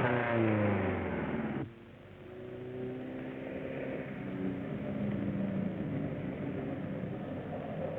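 Motor vehicle engine running, its pitch falling, cut off abruptly just under two seconds in; a quieter, steadier engine sound follows and swells a little.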